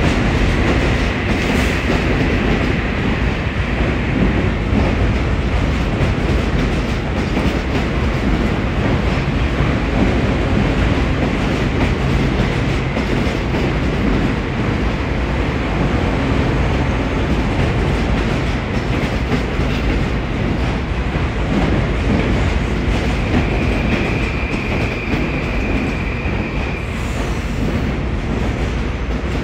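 Metro-North M8 electric multiple-unit train pulling into the station, running loud and steady alongside the platform, with a high steady tone near the start and again near the end.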